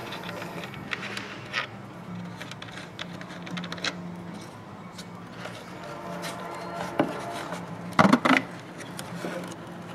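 Plastic clicks and rubbing as the bulb carrier of an Audi A3 tail light is handled and unclipped from its housing, with a sharp click about seven seconds in and a quick run of louder snaps just after, as the tabs let go. A steady low hum runs underneath.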